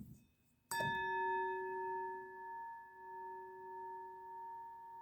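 Steel drum from a Chrysler A-904 automatic transmission struck once, about three-quarters of a second in, then ringing on like a bell with several clear tones that waver and slowly fade.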